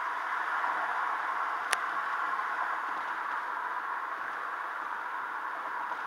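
Steady road noise inside a moving car, with a single sharp click a little under two seconds in.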